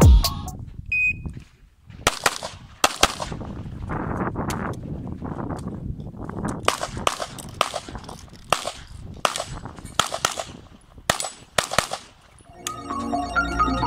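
A short electronic beep about a second in, typical of a shot timer's start signal, then a string of handgun shots fired fast in pairs and short runs over about ten seconds during an IPSC stage.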